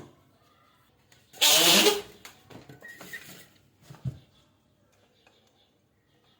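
A loud rush of air through a rubber balloon's neck, lasting under a second, with a wavering low flutter in it. A short soft thump follows a couple of seconds later.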